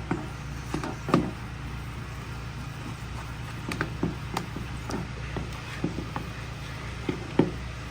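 A spoon stirring and scraping in a cooking pot, with irregular light knocks against the pot, over a steady low hum.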